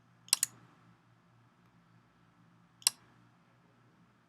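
Computer mouse clicks: a quick double click about a third of a second in, then a single click near three seconds, over a faint low hum.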